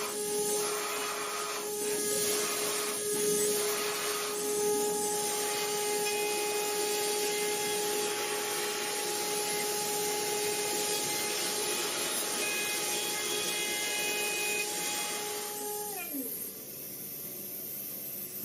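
CNC machine running: a steady high-pitched spindle whine over a hiss of cutting noise, with a few rough scraping strokes in the first seconds. Near the end the whine falls in pitch as the spindle winds down.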